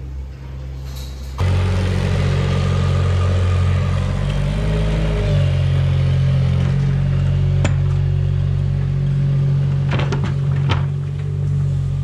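Engine of a small articulated farm loader running steadily as it tows a metal cart, starting abruptly about a second and a half in. The pitch dips and rises about four to five seconds in, and a few sharp knocks come later.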